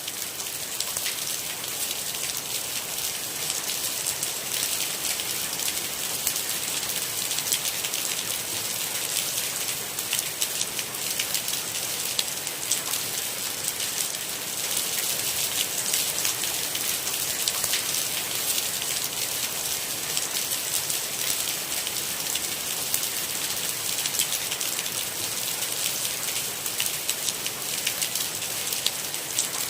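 Steady rain falling, a dense even patter of many small drops striking a surface.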